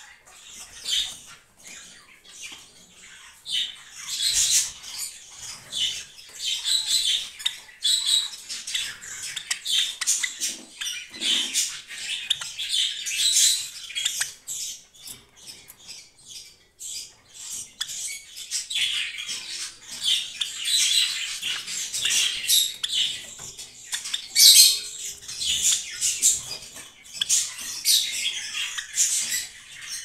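Silver Java sparrow chirping: a long run of short, high twittering notes, with a brief lull about halfway through.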